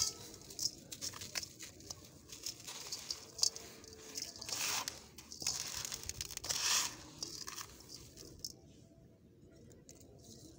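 Gritty yellow sand crunching and crumbling under a hand, as a packed ball of sand is crushed and the loose grains are pressed and raked through the fingers. Many small crackles, with two longer grainy crunches near the middle; it goes quieter for the last couple of seconds.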